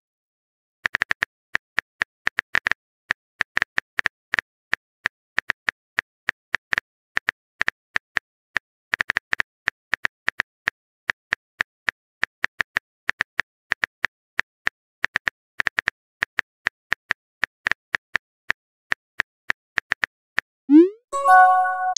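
Typing-sound effect of a messaging app: a long run of short, sharp keyboard clicks at an uneven pace of several a second. Near the end a quick rising swoop is followed by a chime as the message is sent.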